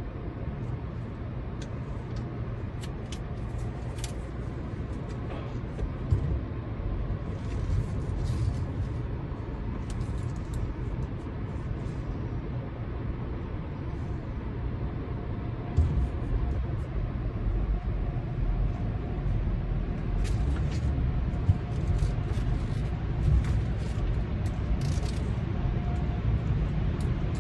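Steady low rumble of a car idling and creeping forward, heard from inside the cabin. A few soft thumps and brief hisses come through now and then.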